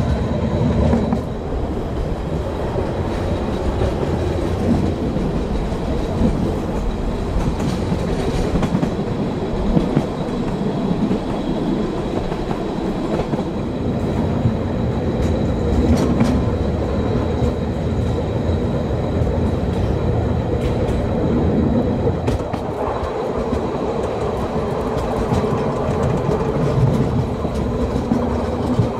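Narrow-gauge (750 mm) steam-hauled train running along the track: a steady rolling rumble of coaches and wheels on the rails, with a sharp click from the wheels now and then.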